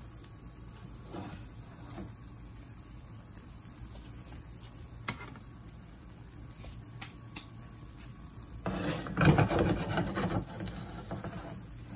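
Eggplant-and-meat omelette patties frying in oil in a pan, a faint steady sizzle with a few small pops. About nine seconds in, a louder rubbing and scraping lasts a second or two.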